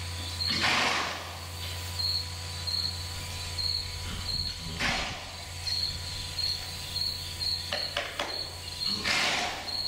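A cricket chirping steadily, a short high chirp about twice a second, over a low steady hum. Three short hissy bursts break in, near the start, about five seconds in and near the end.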